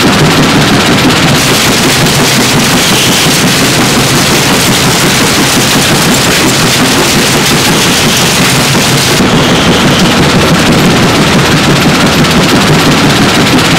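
A 150 TPH three-stage stationary stone crushing plant running: a loud, steady mechanical din of crushers and conveyors working stone.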